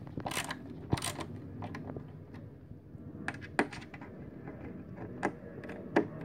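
Hand ratcheting screwdriver tightening a screw into a wooden vanity leg, its ratchet giving about eight sharp clicks at uneven intervals.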